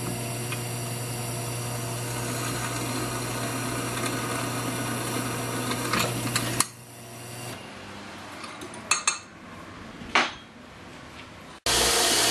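Delta 8-inch benchtop drill press running as it drills a metal shim, a steady motor hum that stops abruptly about two-thirds of the way in. A few sharp clicks of handling follow, and a loud steady noise starts suddenly near the end.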